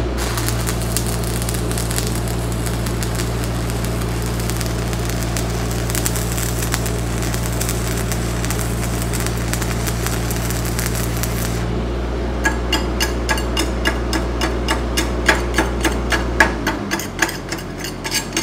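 Stick-welding arc crackling steadily as a 5/32" 6013 electrode burns, over the hum of a Lincoln SAE 300 engine-driven welder running under load. The arc breaks off about twelve seconds in, and a quick run of sharp metal taps follows. The welder engine's hum drops off a few seconds after the arc stops.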